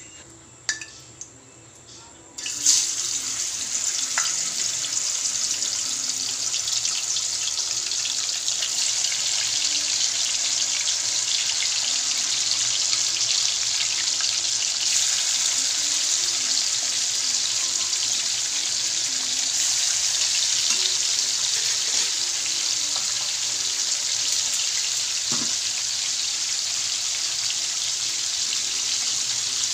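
Pork pieces hitting hot oil in a wok, setting off a sudden loud sizzle about two seconds in that carries on steadily as the meat fries.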